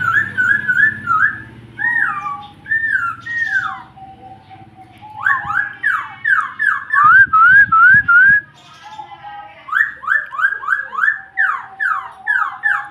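Pet bird singing loud whistled phrases: quick runs of slurred notes, some sliding downward and some rising, in bursts separated by two short pauses.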